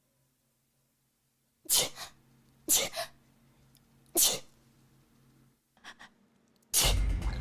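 A person sneezing three times in quick succession, each sneeze short and sharp, about a second apart. Near the end a louder, continuous sound begins.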